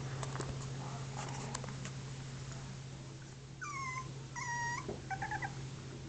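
English Bulldog puppy whining: two drawn-out high whines, the first falling in pitch, about four seconds in, then a few short broken whimpers.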